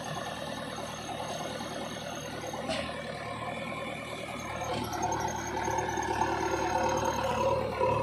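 JCB 3DX backhoe loader's diesel engine running steadily, growing louder from about five seconds in.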